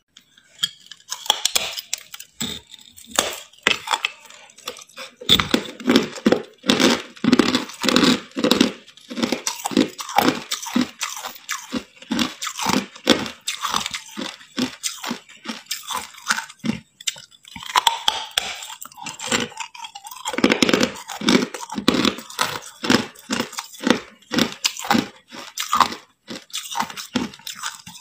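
A person biting and chewing hard clear ice: a long run of sharp, crackling crunches, sparse at first and then rapid, with a few brief pauses.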